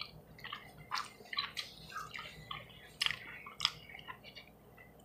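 Close-up eating sounds: a person chewing soft mac and cheese and chicken, with scattered short wet smacks and clicks.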